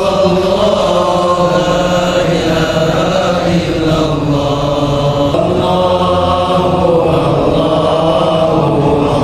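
Islamic devotional chanting: sung voices holding long notes that slide slowly up and down in pitch.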